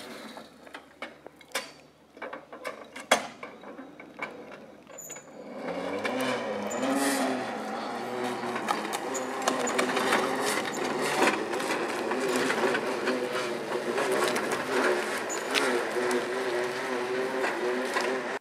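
Scattered cracks and snaps of twigs and branches for the first few seconds. Then, from about five seconds in, a steady mechanical whirring and rattling from a cable-logging carriage hauling a suspended log along the skyline cable, which cuts off suddenly at the end.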